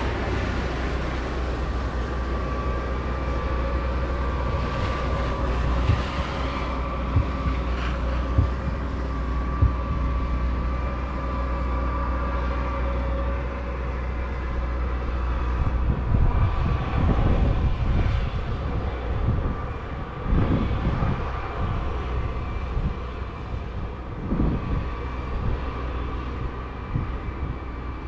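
Snow-squall wind rumbling on the microphone over a steady hum, with gusts buffeting it harder and more unevenly in the second half.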